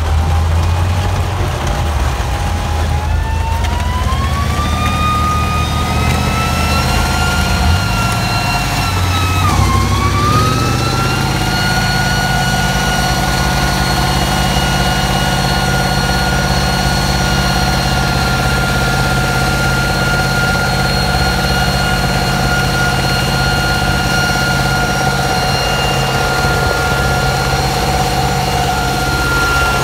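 Swiss Panzer 61 tank's Mercedes-Benz diesel engine running under way across grass, a steady low drone under a high whine. The whine climbs over several seconds, dips briefly about ten seconds in, then holds level.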